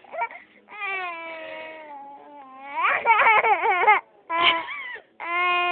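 A young child crying in several long wails. The first falls in pitch, the second wavers, then comes a short cry and a long held one near the end.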